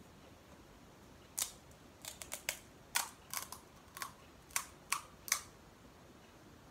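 A crisp, hollow pani puri shell crackling under the fingers as it is pressed and poked open: about a dozen sharp, dry clicks spread over four seconds.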